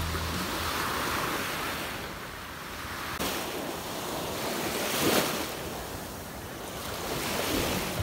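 Small waves breaking and washing up over a sandy beach, the surf swelling and fading every few seconds and loudest about five seconds in.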